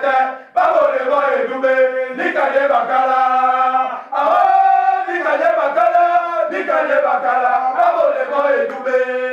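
A group of voices chanting a supporters' song without instruments, in held sung phrases of a couple of seconds each, with brief breaks about half a second in and about four seconds in.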